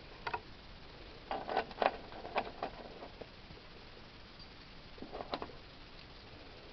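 Light clicks and knocks of parts being handled during engine work: one short click, then a quick cluster of them, then a couple more near the end.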